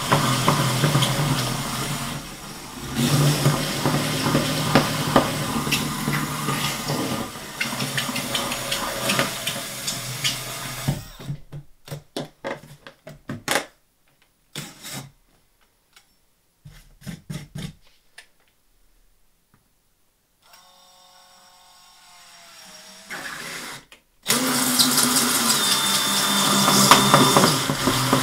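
DeWalt cordless drill running a hole saw through a plastic tote lid in long steady runs. In the middle it stops and starts in short bursts with quiet gaps, then runs steadily again for the last few seconds.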